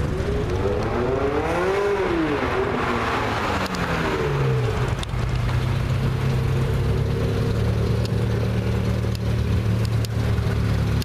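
Ferrari 360 Spider's V8 engine accelerating past, its note rising over the first two seconds and falling away, then idling steadily from about five seconds in.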